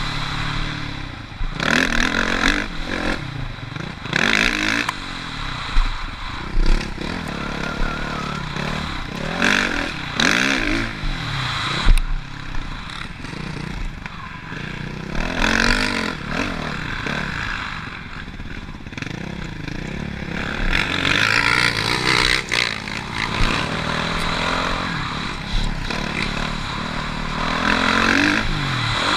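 Motocross bike engine revving up and falling back over and over as it is ridden around the track, with a rushing noise behind it and a few sharp knocks.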